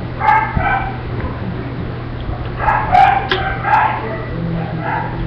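A dog yipping and whining in short high-pitched calls, in three groups: near the start, around the middle and near the end, over a steady low hum.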